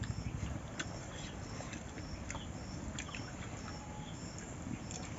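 Faint rural background with a high chirp repeating a little under twice a second, and a few soft clicks.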